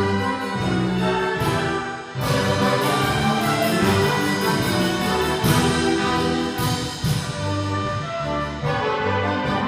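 An orchestra playing, with brass prominent. After a brief drop just before two seconds in, the full ensemble comes in louder and brighter.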